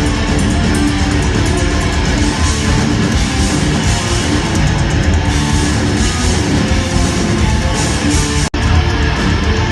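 Loud heavy metal music with guitars, dense and continuous, cutting out for a split second near the end.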